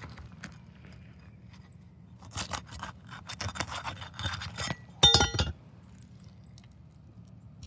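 Metal roofing tool scraping and crackling as it is worked under an asphalt shingle to break its sealant strip, then a sharp ringing metallic clink about five seconds in.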